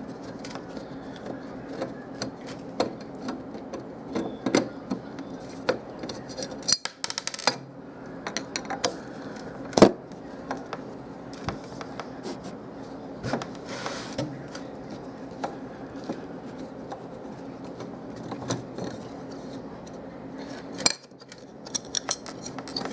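Scattered metallic clinks, taps and rattles as a car radio's sheet-metal case and screws are handled and taken apart by hand, with one sharp knock about ten seconds in. A steady low hum runs underneath.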